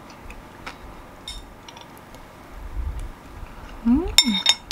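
Metal spoon clinking against a ceramic bowl while eating: a few faint taps, then a loud ringing clink near the end. Just before it there is a short hummed 'mm'-like voice sound that rises and falls.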